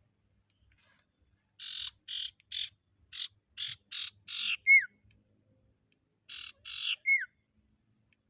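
Common iora (sirtu, cipoh) calling: a run of harsh, rasping notes at about two a second, closed by a short, sharply falling whistle. After a pause comes a shorter phrase of two rasps and another falling whistle.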